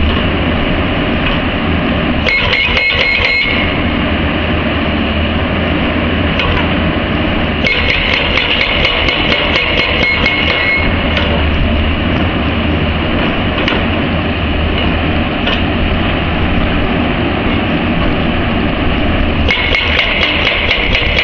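ICM IB800 silenced hydraulic breaker on an excavator hammering rock, with a steady low engine note beneath it. The rapid strikes ring out sharper about two seconds in, again from about eight to eleven seconds, and once more near the end.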